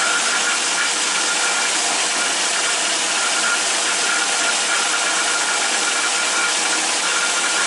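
Atlas 10-inch metal lathe running steadily as a starter drill in the tailstock bores into the end of a turning backhoe pin, a continuous mechanical whir with a faint high tone that comes and goes.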